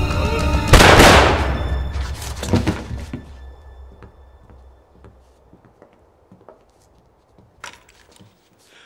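A loud thunking impact hit about a second in, cutting off tense film music and dying away over a couple of seconds, followed by a few lighter knocks and then near quiet with faint clicks.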